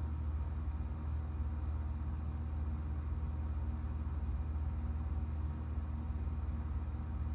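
Steady low mechanical hum that holds an even level throughout.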